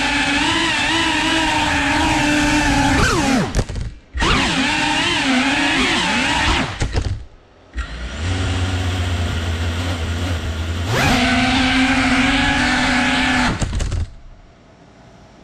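FPV whoop drone's motors and propellers whining, the pitch wavering up and down with throttle. The whine falls and nearly stops about three seconds in and again about seven seconds in, picks back up, holds steady, then cuts off about fourteen seconds in, leaving only a faint hiss.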